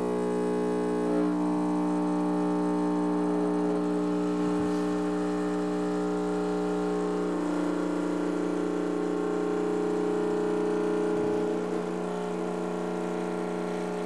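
Rancilio Silvia espresso machine's vibratory pump humming steadily while it pushes water through the coffee to pull a shot of espresso. It drops a little in level near the end.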